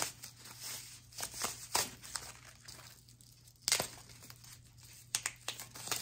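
Paper wrapping rustling and crinkling as it is peeled and pulled off a bag strap, in irregular crackles with one sharper, louder crackle past the halfway point.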